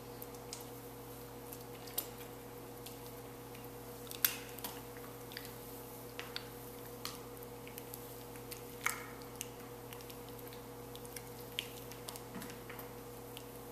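Scattered small sticky, wet clicks and smacks of chocolate syrup on skin, sharpest about four seconds in and again near nine seconds, over a steady electrical hum.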